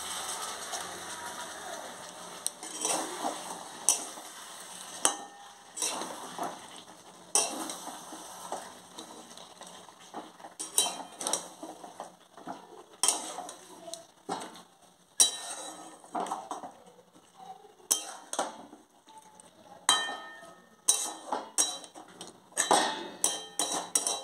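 A steel spatula stirring chicken and potato curry in a metal kadai, scraping and clinking against the pan in irregular strokes throughout, over a light sizzle of the curry cooking down.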